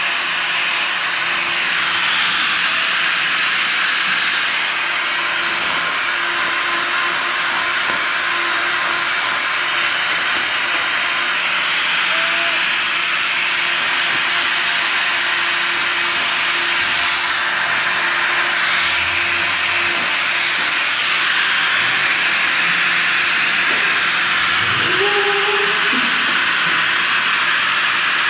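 Angle grinder with a hoof-trimming disc shaving down a cow's hoof horn, a steady hiss that runs on without a break.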